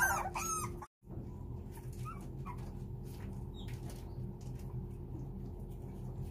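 Puppies whining for their mother dog: a few high, arching whines in the first second, cut off abruptly, then only faint, scattered whimpers over a low steady hum.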